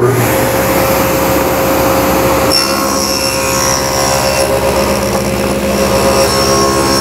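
A table saw starts up suddenly and runs at speed. About two and a half seconds in, its blade, raised only about a thirty-second of an inch, begins cutting a shallow groove along a wooden board for an inlay strip, adding higher ringing tones to the motor's steady sound.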